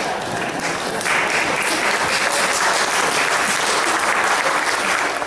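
Church congregation applauding, the clapping growing fuller about a second in and holding steady.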